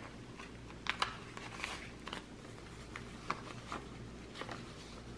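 Paper banknotes and the plastic pouch pages of a cash binder being handled: quiet rustles and scattered light clicks, with a longer rustle about two seconds in.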